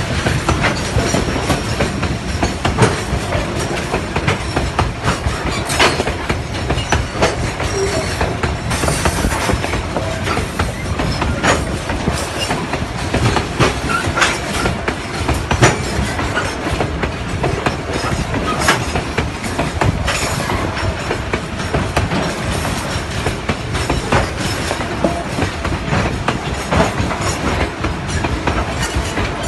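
Freight train of steel coal wagons rolling past close by: a steady rumble of wheels on rail with irregular clanks and clicks from the wheels and couplings.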